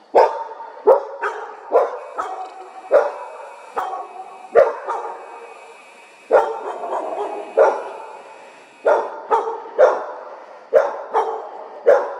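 A dog barking over and over, one or two barks a second, with a short break about halfway through.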